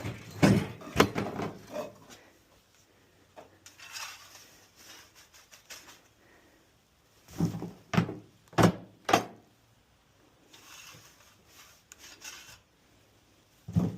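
Shovel or manure fork scraping and rubbing over a stall floor while mucking out, in short separate strokes: three quick ones near the start, four in a row about halfway through and one more near the end.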